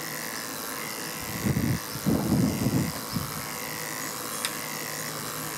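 Electric dog-grooming clippers running steadily while being drawn through a dog's coat. A few louder, low rumbles come through about one and a half to three seconds in.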